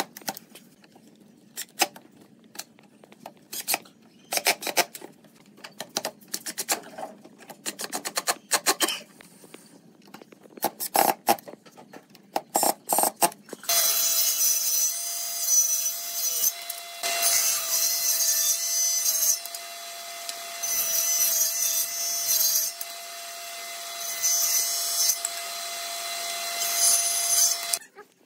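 Clicks, knocks and brief whirs of a cordless drill-driver screwing a metal hinge onto a pine frame. About halfway through, a table saw on a combination woodworking machine starts running with a steady hum, and its hiss swells several times as a narrow wooden piece is cut.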